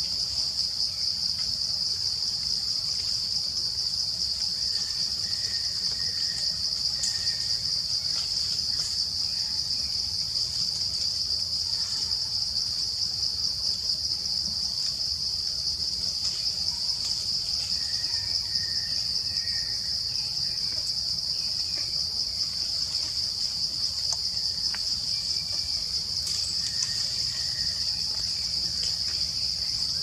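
A steady, high-pitched chorus of insects, a continuous fast-pulsing buzz. A few faint short chirps come in small groups at intervals.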